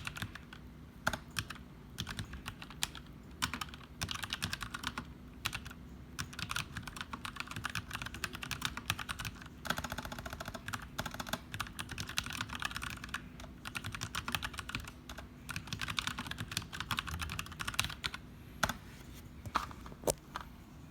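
Archon AK89 mechanical keyboard with stock box brown (tactile) switches being typed on continuously: a rapid clatter of keystrokes, densest about halfway through, thinning to a few separate key presses near the end.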